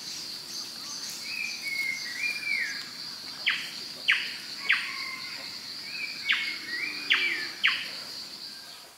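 Forest birds calling: six short, sharp falling whistles and a few warbled notes, over a steady, high-pitched insect drone that cuts off just before the end.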